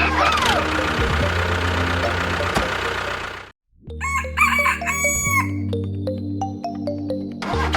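Steady low engine drone that cuts out for a moment about three and a half seconds in. Just after the gap a rooster crows once over it, with a few clicks, and then the drone carries on.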